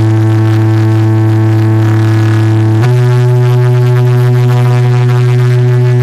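Loud, held low electronic drone notes played through a large DJ 'box' speaker setup in a sound check. The note steps up to a higher pitch about three seconds in.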